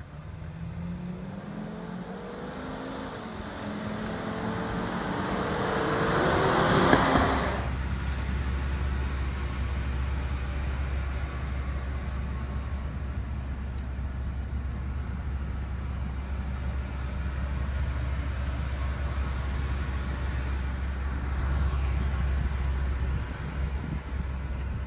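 A motor vehicle approaching and passing close, its engine note rising and loudest about seven seconds in. The sound then gives way abruptly to a steady low engine rumble, as of an idling truck heard from inside the cab.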